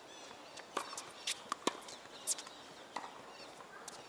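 Tennis rally on a hard court: a series of sharp pops from the ball striking rackets and bouncing, about six in all, with the players' footsteps.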